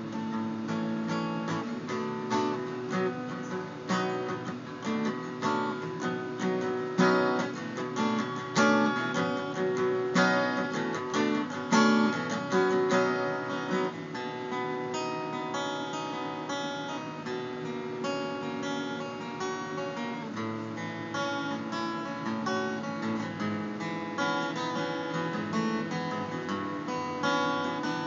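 Acoustic guitar played solo, chords picked and strummed with no singing, with a few louder strummed accents between about seven and twelve seconds in.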